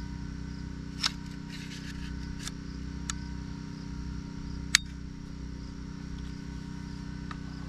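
Metal clicks of an AR-15 (M&P 15 Sport II) being reassembled by hand as the 5.56 bolt carrier goes back in: a handful of short sharp clicks, the loudest about halfway through, over a steady low hum.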